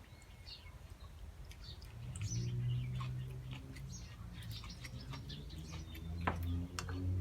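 A steady low hum, like a motor running, comes in about two seconds in, with birds chirping and scattered light clicks throughout.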